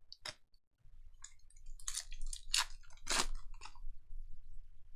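Trading card packs and cards being handled, giving a string of short crinkles and crackles, the loudest about two to three seconds in.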